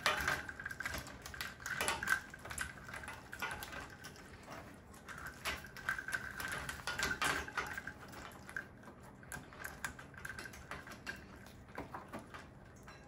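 A Ducorps's cockatoo biting and rattling the plastic gear-shaped pieces strung on a PVC-pipe toy: irregular clicking and clattering, busier in the first half and thinning out toward the end.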